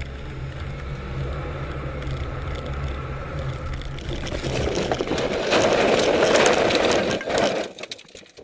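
Rally car engine running steadily, heard from inside the cabin; about four seconds in, a loud rushing and rattling noise as the car ploughs off the road into deep snow, dying away near the end.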